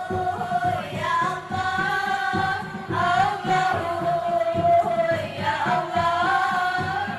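A group of high voices singing a melody in unison, with long-held notes, over music with a steady drum beat.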